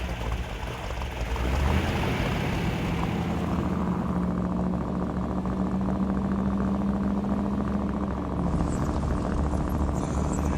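Car engine running steadily, growing louder about a second and a half in and then holding an even hum.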